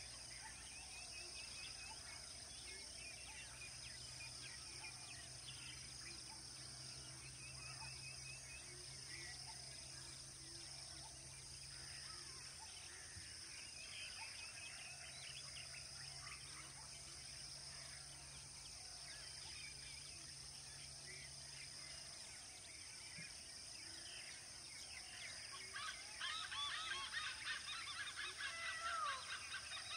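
Outdoor dusk ambience: a steady high insect drone with scattered bird chirps and a faint low hum that stops about two-thirds of the way through. Near the end a flurry of louder, quick bird calls with sweeping notes.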